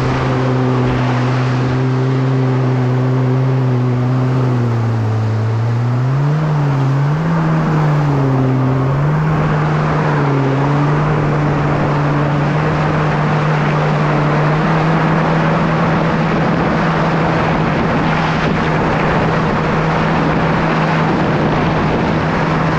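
2017 Kawasaki SX-R 1500 stand-up jet ski's four-cylinder four-stroke engine running under way over a constant rush of wind and water. Its pitch dips about five seconds in and wavers up and down for a few seconds, then holds steady, a little higher, to the end.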